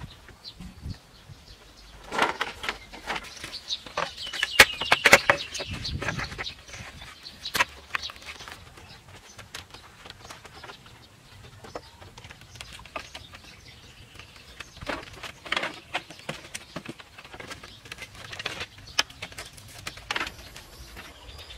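Scattered knocks and clacks of bamboo poles being handled and fitted, busiest a couple of seconds in and again in the second half, with birds calling in the background.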